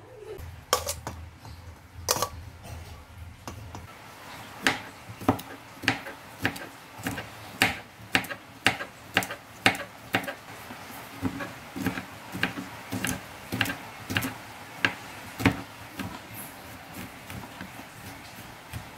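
Kitchen knife chopping chilies and garlic on a plastic cutting board: a run of sharp taps, about two a second, growing fainter toward the end.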